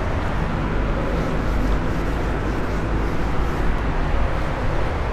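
Steady low rumble and hiss of background room noise, even throughout with no distinct events.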